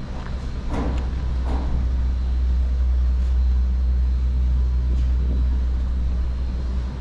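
Garaventa six-seat chairlift running, a steady low mechanical drone and hum, with a few short clicks in the first two seconds.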